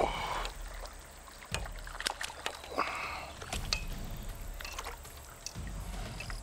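Hooked crucian carp splashing and thrashing at the water's surface as it is drawn in, with bursts of splashing at the start and about three seconds in. Scattered sharp clicks.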